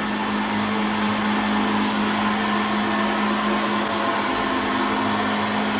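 Steady hum of running kitchen equipment: a constant low drone under an even rushing noise.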